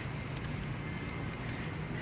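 Steady low engine hum, even throughout, with wind noise on the microphone.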